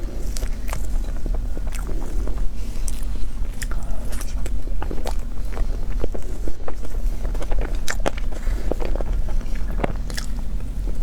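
Close-miked eating: bites and chewing, with many irregular small clicks and crunches over a steady low hum.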